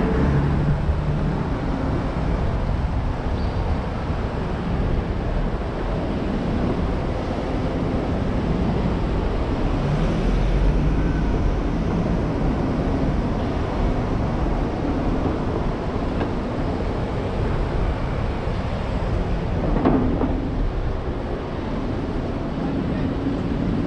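City street traffic heard from a car driving through it: steady road and engine noise from vehicles moving along the avenue, with a short thump near the end.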